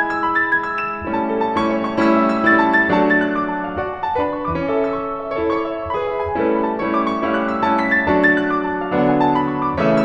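Background piano music: a melody of held notes with chords.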